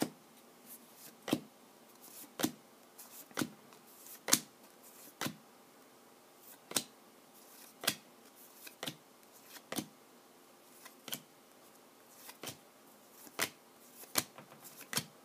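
Bowman Chrome trading cards flipped through by hand one at a time, each card giving a short sharp flick, about one a second at an uneven pace.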